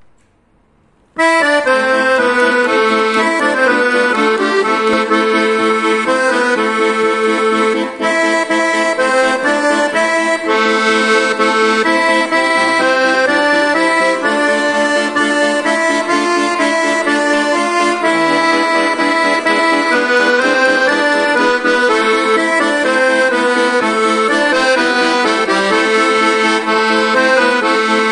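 Cav. Della Noce piano accordion playing a tarantella, a treble-keyboard melody over left-hand bass buttons. It starts about a second in and continues at a steady level.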